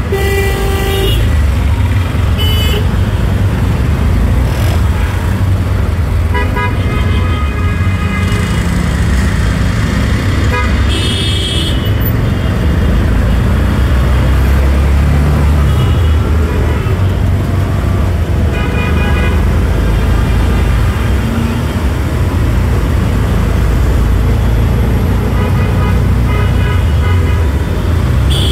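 Road traffic heard from inside a moving auto-rickshaw: a steady low engine and road rumble, with other vehicles' horns honking several times.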